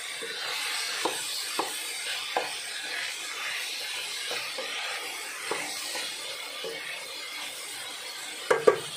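Vegetables sizzling in a stainless steel pan as they are stirred with a wooden spatula, which knocks against the pan every so often; two louder knocks come close together near the end.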